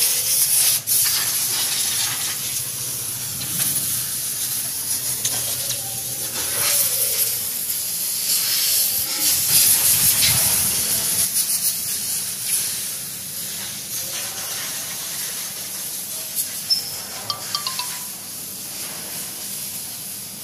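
Toyota Land Cruiser turbo diesel engine running, a low drone under a loud, steady hiss.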